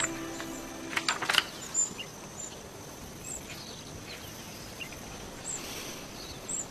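Rural outdoor ambience: a soft steady hiss with short high chirps that repeat irregularly every second or so, typical of insects or birds. A quick cluster of sharp clicks about a second in is the loudest part.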